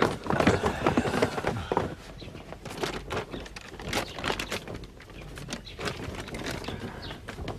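Rustling of cloth robes and shuffling as a crowd kneels and bows, busiest in the first two seconds, then scattered soft rustles and clicks.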